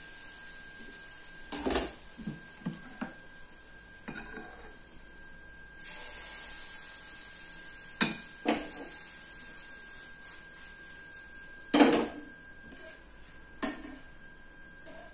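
Utensils clinking and knocking against metal grill pans and a glass batter bowl, with the loudest knock near the end. Pancake batter sizzles in a hot grill pan from about the middle, under a faint steady whine.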